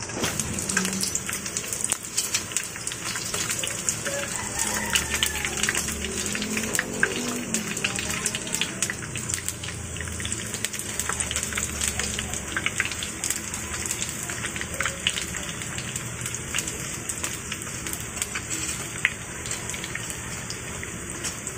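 Chicken nuggets sizzling in hot oil in a frying pan: a steady hiss full of quick pops and crackles.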